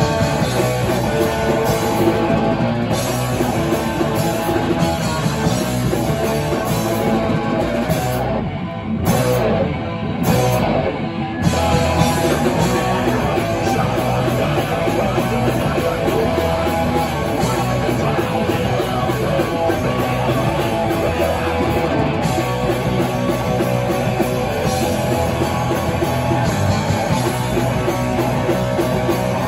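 Live heavy rock band playing loud, with electric guitars and drums. The sound briefly thins out about nine seconds in, then comes back at full force.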